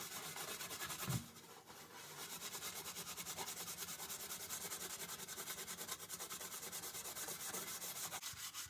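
Hand scrubbing on the toaster oven: a knock about a second in, then fast, even back-and-forth scrubbing strokes that stop near the end.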